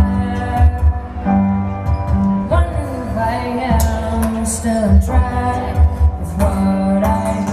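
Live pop band playing, with a steady low beat, held chords, and a voice singing a sliding line partway through.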